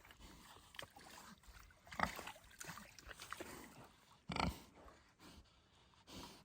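A pig making a few short grunts and snuffles, the loudest about four seconds in.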